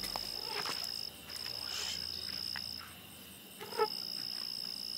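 Crickets trilling in one steady high note that breaks off twice briefly, with a few sharp clicks over it, the sharpest about four seconds in.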